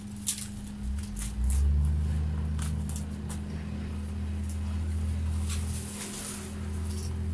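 Cut tree branches being pulled and gathered: sharp twig cracks and snaps in the first few seconds, then rustling of dry branches, over a steady low rumble.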